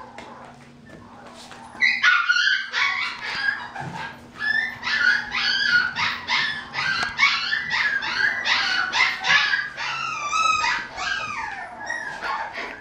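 A puppy yipping and whining in a rapid run of short, high-pitched calls, about two a second, starting about two seconds in; a few calls near the end slide down in pitch.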